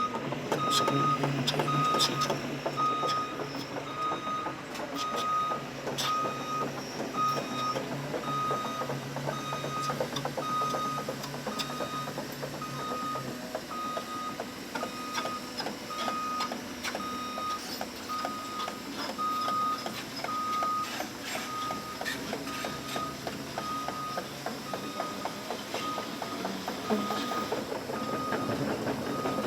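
Heavy equipment backup alarm beeping steadily about once a second, over a diesel engine running and the irregular clanking of steel excavator tracks; the engine note drops away about halfway through.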